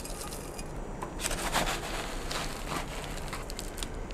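Slotted plastic pot rubbing and scraping as it is pressed down into a glass jar, a few short rustling scrapes from about a second in.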